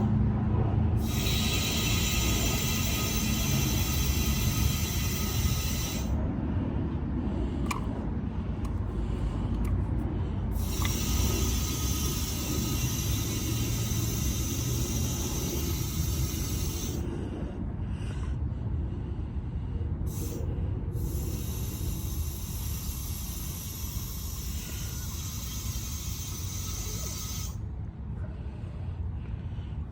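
Nitrogen hissing through the regulator and charging hoses into an air-conditioning system, pressurizing it to test the new compressor's joints for leaks. The hiss comes in three spells of several seconds each, with short pauses and a few light clicks between them, over a steady low rumble.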